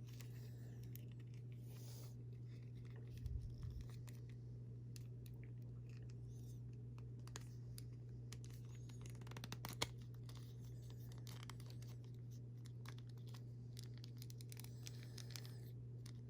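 Faint scratching, rubbing and small clicks of a plastic action figure being handled while its vest is worked back onto it, with a couple of slightly louder knocks, over a steady low hum.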